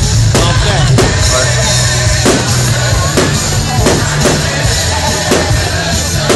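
Loud music with drums, cut by sharp bangs of aerial firework shells bursting about every half second to a second.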